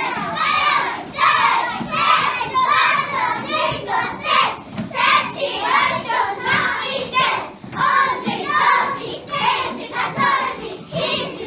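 A class of young children chanting together in unison, in a steady rhythm of about two to three syllables a second.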